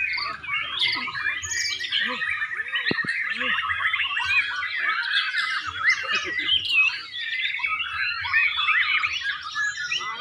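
Several white-rumped shamas (murai batu) singing at once, a dense, unbroken tangle of overlapping quick whistles and chirps.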